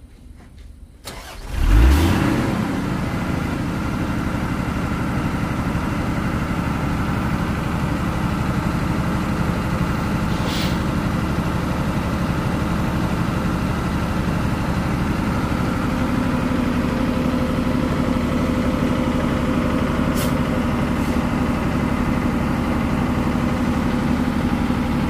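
Diesel engine of a Mitsubishi Fuso 6x4 heavy truck starting about two seconds in, flaring briefly as it catches, then running steadily.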